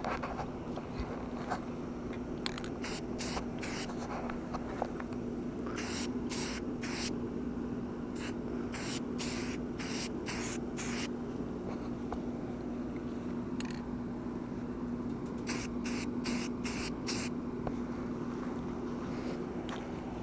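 Aerosol spray-paint can hissing in short bursts, a few quick bursts at a time in four groups, laying a coat of paint on a maul head.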